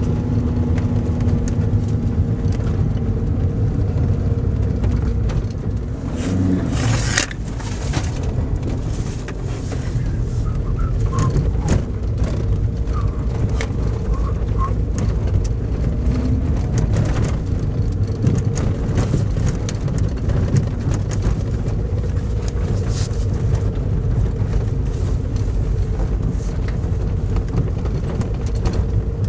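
A car driving slowly down a rough gravel track, heard from inside the cabin: a steady engine and tyre rumble with scattered knocks and rattles from the rough surface. There is a louder burst of noise about seven seconds in.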